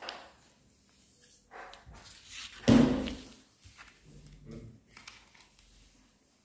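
Faint rustling and creasing of a sheet of paper being folded by hand on a tabletop, with one sudden loud sound nearly three seconds in.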